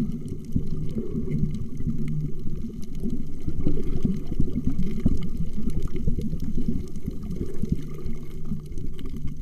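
Muffled underwater sound of bubbling and gurgling water, with a low hum beneath it.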